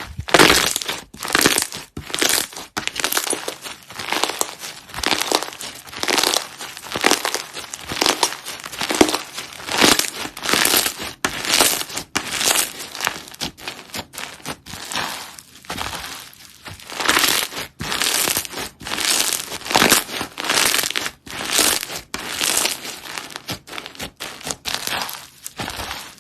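Slime being squeezed and pressed by hand, in a continuous run of noisy, crackly squishes about once or twice a second.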